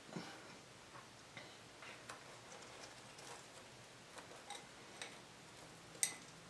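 Faint, scattered small clicks and crackles from fingers with long acrylic nails picking through crispy fried chicken and egg rolls on a platter, with one sharper click about six seconds in.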